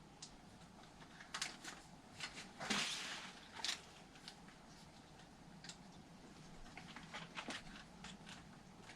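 Faint handling noises on an RC nitro truck as its fuel line is worked onto the carburetor: scattered small clicks and taps, with a brief rustle about three seconds in.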